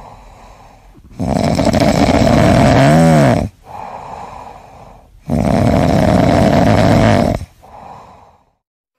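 A sleeping cat snoring: two long, loud snores of about two seconds each, with quieter breaths between them. The first snore ends in a brief pitched note that rises and falls.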